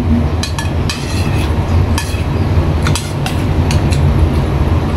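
Metal spoon clinking and scraping against a stainless steel bowl, in a scattering of short light clicks, over a steady low rumble.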